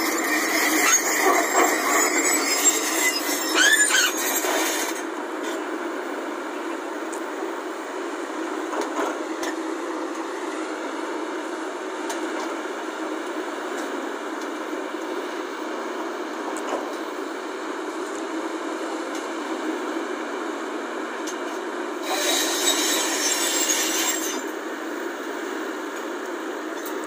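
Volvo crawler excavator working, its engine running steadily under load while the machine gives high metallic squeals as it digs, loudest in the first few seconds and again near the end.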